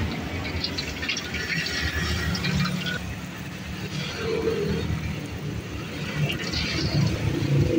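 Rempeyek batter with peanuts sizzling and crackling in hot oil in a wok, over a steady low rumble.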